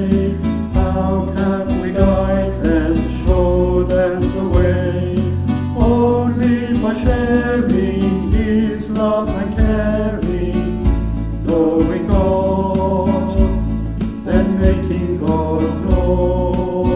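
A small group of singers sings a Christian song with instrumental backing.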